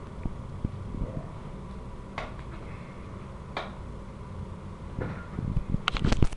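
Puppy nosing and chewing a rubber rope toy in a fabric dog bed: low rustling and handling noise with an occasional sharp click, then a quick run of louder knocks and clicks near the end.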